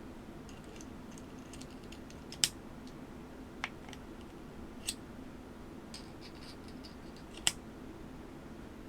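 Keyboard and packaging being handled: light clicks and ticks in two runs, with four sharp clicks, the loudest about two and a half seconds in and another near the end, over a steady low room hum.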